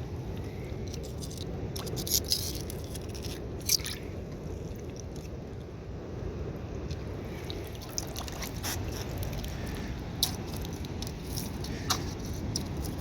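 Water dripping and sloshing over a steady low wash, with sharp clicks every few seconds.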